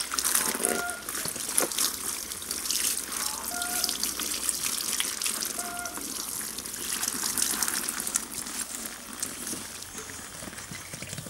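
Water poured in a stream from a plastic container, splashing and trickling over a dog's back as it is bathed and its coat rubbed by hand, easing off near the end. Three brief beep-like tones sound about two and a half seconds apart.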